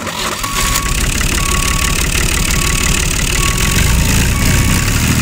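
Tractor engine running steadily, a loud rumbling engine sound effect laid over a toy tractor, with a faint short tone recurring about once a second.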